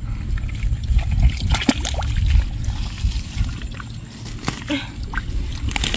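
Gloved hands groping and sloshing through thick mud and shallow muddy water, with scattered wet splashes and squelches.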